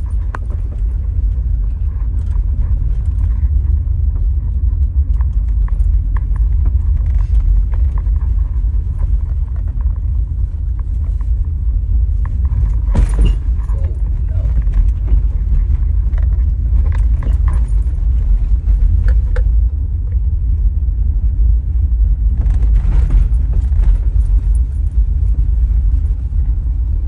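Steady low rumble of road and engine noise inside a 2003 Buick Regal on air suspension, driving over a rough, patchy road. Short knocks and rattles come now and then, thickest about halfway through and again near the end.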